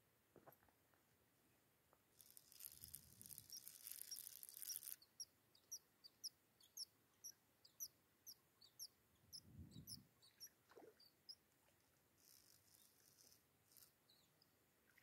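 Faint whirring of a spinning fishing reel being cranked for a few seconds, followed by a run of short high chirps, several a second, with a single low thud near the middle and another brief whirr later.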